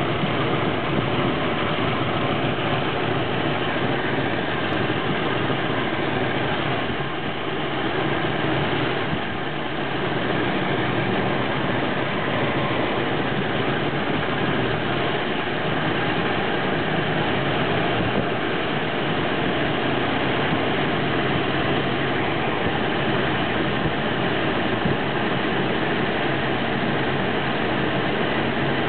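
1962 Oldsmobile F-85's 215 aluminium V8 idling steadily.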